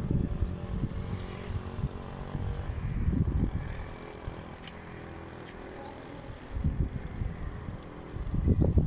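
Uneven low rumbling outdoors that eases off in the middle and swells again near the end, with about five short, rising bird chirps high above it.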